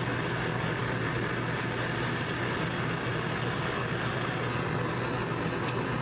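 Gas burner of a glass bead-making furnace running steadily: an even hiss with a low hum under it. A faint click comes near the end.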